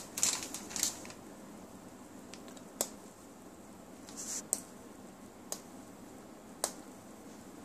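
Blue-and-yellow macaw cracking and chewing an almond held in its foot with its beak: a handful of short, sharp crunches at irregular intervals.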